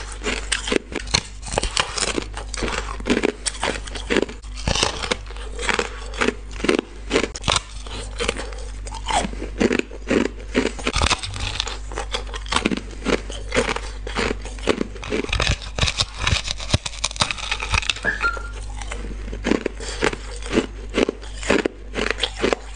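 Close-up crunching of someone biting into a large flat disc of hard ice, with sharp cracking bites and chewing of the pieces coming again and again. A steady low hum sits underneath.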